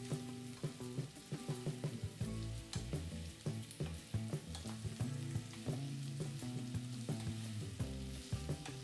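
Food sizzling as it fries in oil in a pan, with scattered clicks from stirring, under background music with a melody.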